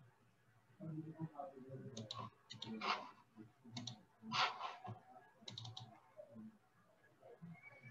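Faint, scattered clicks of a computer mouse and keys, some coming in quick runs of three or four, over a low background murmur.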